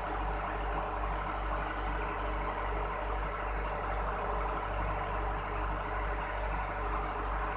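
Steady low mechanical hum with a regular throb a few times a second.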